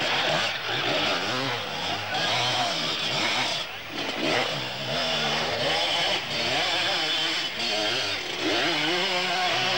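Two-stroke enduro motorcycles passing close by one after another, engines revving hard, their pitch rising and falling as the riders throttle on and off. The sound drops briefly about four seconds in, and another engine revs up near the end.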